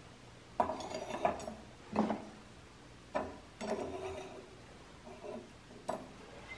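Steel knife blade and pliers clinking and scraping against the mouth and floor of a heat-treat oven as the blade is pushed inside: a handful of separate metallic clinks, some briefly ringing, with a longer scrape near the middle.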